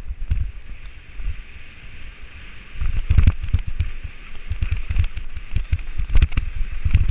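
Mountain bike riding down a rough dirt trail, heard from a camera mounted on the bike: wind on the microphone and tyres rolling over dirt and leaves, with knocks and rattles of the bike over the bumps, getting louder about three seconds in.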